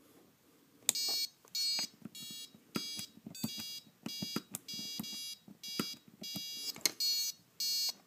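Piezo buzzer on a gas-RC kill switch sounding a series of about a dozen short electronic beeps, with small clicks from the unit's dip switch being flicked up and down. The beeps signal the glitch-sensitivity setting being cycled back to level 1.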